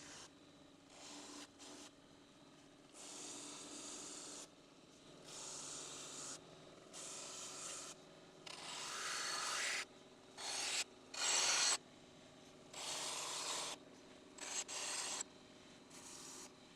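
A brush scrubbed by hand over the cleaver's old wooden handle to clean off grime: a series of separate strokes of a second or two each with short pauses, loudest about halfway through.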